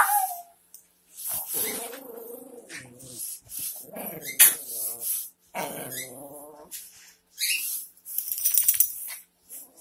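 Two small dogs play-wrestling, growling and whining in several short bouts, with a sharp click partway through.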